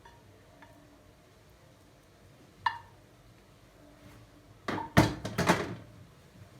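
A single ringing clink of dishware, then about a second of clattering knocks as dishes or kitchen utensils are handled, the loudest knock near the start of the clatter.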